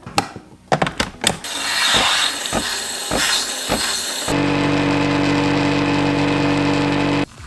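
A Nespresso milk-frothing coffee machine at work: first a hiss as it froths and dispenses the milk, then, from a little past halfway, a steady pump hum as it brews the coffee, cutting off sharply near the end. A few clicks and knocks come in the first second.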